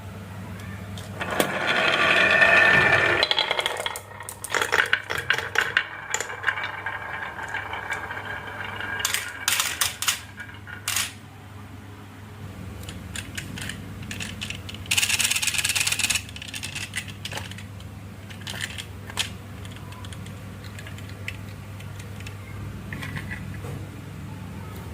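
Marbles rolling and clattering down a wooden HABA marble run, with sharp clicks and clacks as they hit the track pieces and each other. There is a longer rolling rush early, a loud rattle at about fifteen seconds, and a steady low hum underneath.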